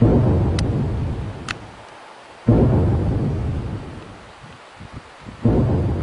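Deep, booming rumbles of unknown origin, three in a row about three seconds apart, each starting suddenly and fading away over about two seconds.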